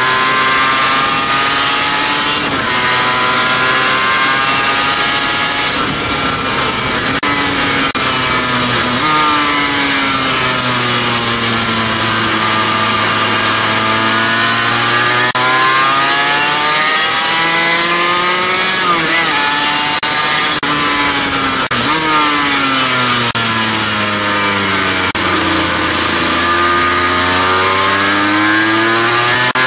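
Sport motorcycle engine heard from on board at track speed, revs climbing and falling through the gears with sudden drops at the shifts and a long slow fall and rise through the corners. A steady rush of wind runs underneath.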